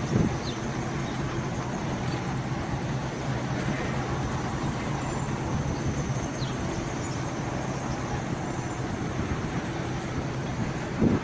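Street traffic: a steady engine hum under road noise.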